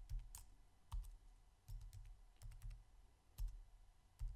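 Computer keyboard being typed on: about ten faint, unevenly spaced keystrokes.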